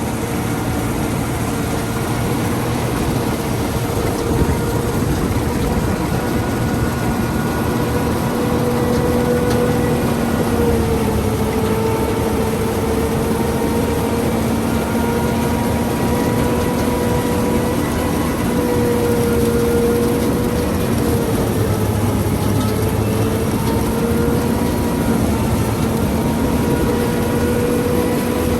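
Combine harvester running steadily with a droning whine that dips and rises slightly in pitch a few times.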